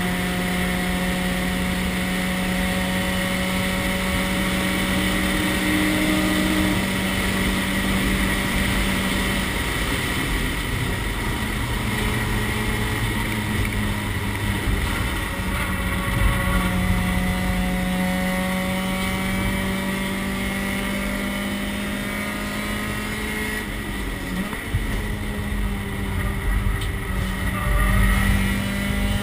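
Race car engine running hard at fairly steady high revs, heard from inside the cockpit along with wind and road noise. The engine note dips briefly about three-quarters of the way through and climbs again near the end.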